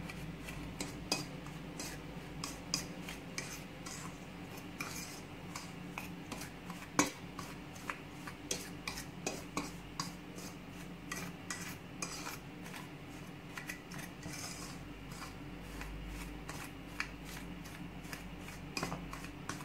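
A metal fork scraping and clinking against a stainless steel bowl while mixing dry cornmeal, salt and coconut powder: irregular light clicks and scrapes, several a second, with one louder clink about seven seconds in.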